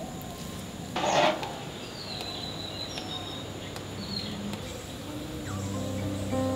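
Birds calling with thin, high, falling whistles, over a short rushing noise about a second in. Soft instrumental music fades in near the end.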